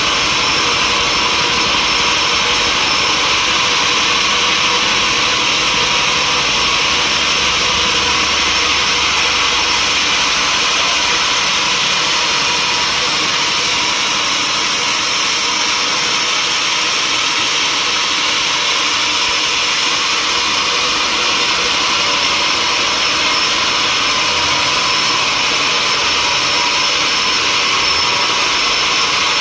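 Sawmill saw running steadily through mahogany wood: a constant rushing noise with a few steady high whining tones.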